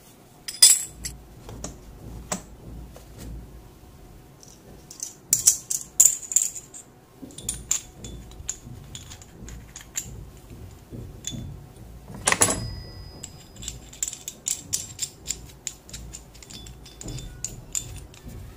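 Steel hole saw cups and a hole saw arbor clinking and clicking against each other as they are handled and the arbor is screwed into a hole saw. Sharp metal clinks come about half a second in, in a cluster around five to six seconds, and loudest once at about twelve and a half seconds, with lighter ticks after.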